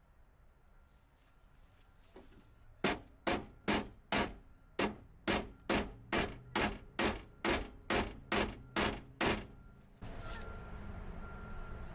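Repeated hammer blows on a junkyard car's parts, about eighteen strikes at a little over two a second, starting a few seconds in and stopping short of the end. Near the end the sound changes suddenly to a steady hiss with an on-off high tone.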